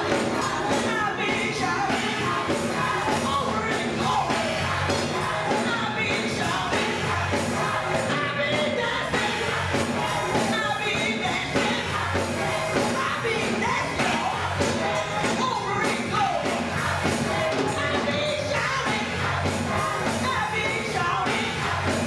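Gospel choir singing with a woman singing lead into a microphone, accompanied by a Yamaha electronic keyboard.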